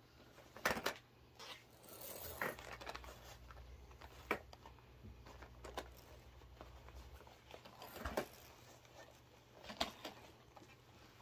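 Soft cloth toy cars with plastic wheels being handled and set down on a fabric play mat: scattered light clicks and knocks, about seven over the span, with faint rustling.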